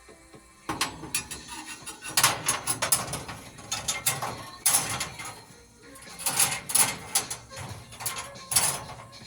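Irregular metallic clicks, clanks and rattles of hand work on a sawmill's blade and its fittings, with sharper knocks scattered through.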